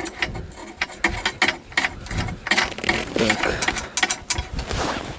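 Wrench working a bolt on the sled's steel frame: a quick, uneven run of metallic clicks and scrapes.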